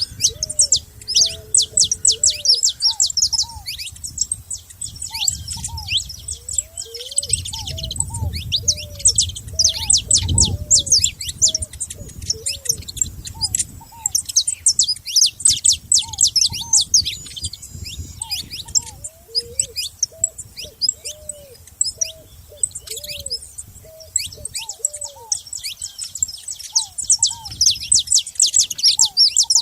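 Saffron finches chirping and singing in a dense stream of rapid, high notes, with a slower series of lower, curving calls beneath. The high chirping thins out briefly about two-thirds of the way through, then picks up again.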